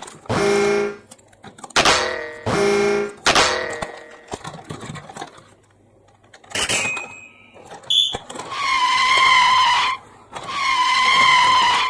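Electronic toy sound effects: a run of short pitched toots in the first few seconds, then two long wavering whistle-like tones, each about a second and a half.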